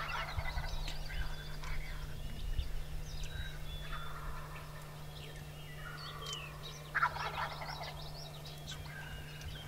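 Wild turkey gobblers gobbling: a short rattling gobble right at the start and a louder one about seven seconds in, with a fainter call around four seconds in. Small birds chirp faintly in the background.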